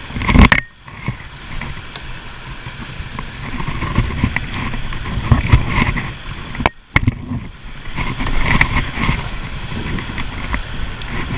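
Shallow river rapids rushing and splashing around an inflatable kayak as it runs through them, with heavy buffeting on the microphone. There is a loud thump about half a second in, and the sound drops out briefly twice.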